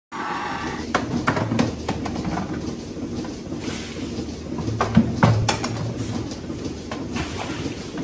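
White plastic calf-feeding buckets knocking and clattering on a concrete floor as they are handled, with a few hollow knocks every second or so, the loudest about five seconds in, over a steady low machine hum.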